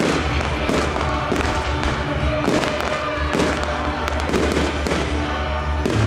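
Fireworks bursting overhead in a quick run of bangs and crackles, with music playing loudly alongside.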